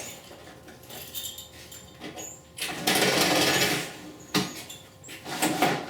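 Circular saw on a portable saw table making a quick straight cut through a piece of vinyl siding. The burst of loud cutting noise lasts about a second and a half, a little before the middle, with a few knocks and clicks around it as the piece is handled.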